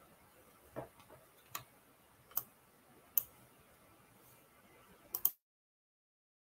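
Faint line hiss broken by sharp clicks, four of them evenly spaced about 0.8 s apart and then a quick double click, after which the audio cuts off abruptly to dead silence: the call's audio feed dropping out.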